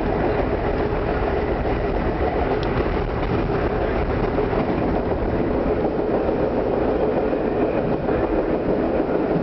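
Vintage Lo-V subway train running through a tunnel, a steady rumble of wheels on rail heard from inside the car.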